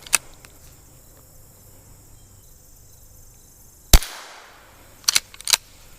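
Winchester lever-action .22 LR rifle firing once about four seconds in: a single sharp crack with a brief echo. About a second later come a few quick clicks as the lever is worked. There is a smaller click near the start, and faint insects in the background.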